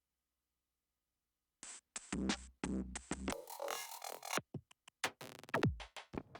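Electronic music from an Akai MPC One sampler and synthesizers: after a second and a half of dead silence, choppy, stuttering drum-machine hits and samples start. A noisy wash follows, then a steeply falling pitch sweep near the end.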